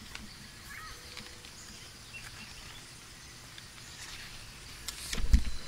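Faint outdoor nature ambience with a few scattered animal calls, a nighttime forest backdrop. Near the end come a few low thumps.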